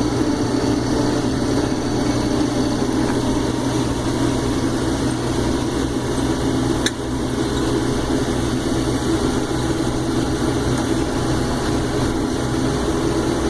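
Case IH 2388 combine running steadily while harvesting corn with its eight-row corn head: a continuous drone of engine and threshing machinery. A single sharp click comes about seven seconds in.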